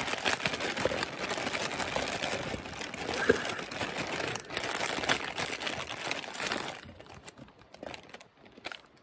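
Food packaging crinkling and rustling as it is handled, stopping about seven seconds in, followed by a few faint ticks.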